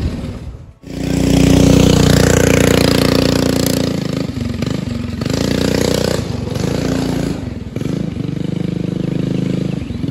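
Buggy's swapped-in Duromax 7 hp single-cylinder engine running hard at high revs. The revs drop briefly several times as the throttle is let off and reopened, after a short cut-out about a second in.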